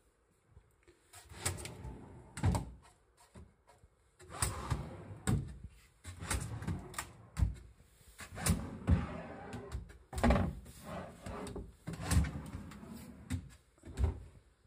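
Wooden pull-out drawers on metal runners being pulled out and pushed shut again and again: a rolling slide noise broken by a dozen or so sharp wooden knocks as they hit their stops.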